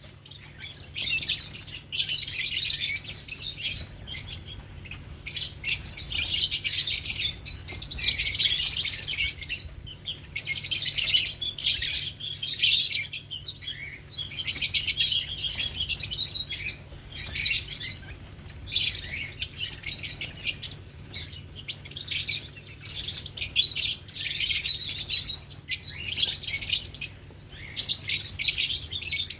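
Lovebirds chattering in rapid, high-pitched chirps that come in bouts of a few seconds with short pauses, over a faint steady low hum.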